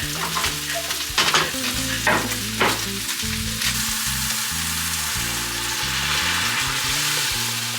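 Food sizzling in a frying pan, with a utensil clinking and scraping against the pan a few times between about one and three seconds in.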